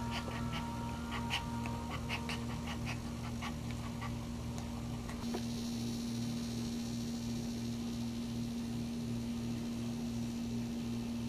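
Maltese in labour giving a quick run of short, high whimpers for the first four seconds or so, over a steady electrical hum. The whimpers stop about five seconds in and only the hum remains.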